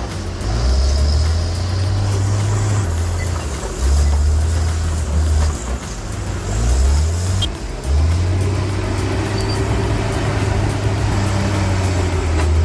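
Heavy equipment engine running under background music with a stepping bass line.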